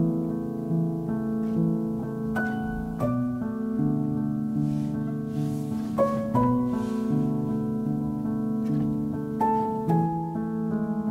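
Slow, gentle instrumental background music: sustained notes that shift every second or two, with a few sharper note strikes.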